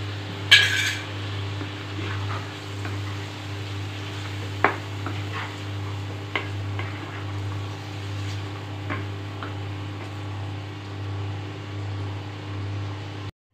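Wooden spatula stirring mushrooms in a thick sauce in a nonstick kadhai, scraping and now and then knocking against the pan over a low sizzle. One sharp clink about half a second in.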